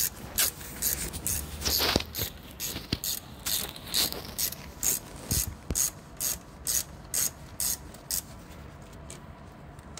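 Ratchet wrench being swung back and forth, each stroke giving a short burst of clicks, about two to three strokes a second; it stops a little after eight seconds in.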